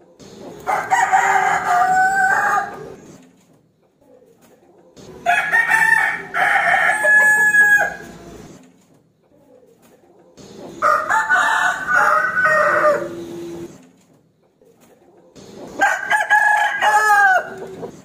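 Rooster crowing four times, each crow lasting two to three seconds, with pauses of about two seconds between them.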